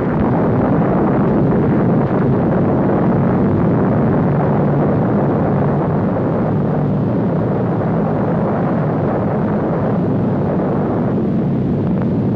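Atomic bomb explosion on an old newsreel soundtrack: a loud, steady rumbling roar, its higher part fading a little near the end.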